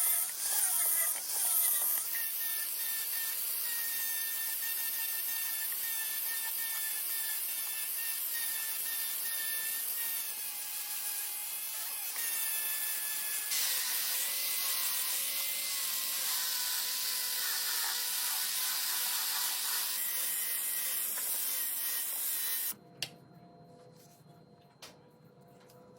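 Wood being abraded with a tool: a steady scraping hiss with a wavering whine over it. The sound changes character at several cuts, then stops near the end, leaving a quiet stretch with a few light clicks.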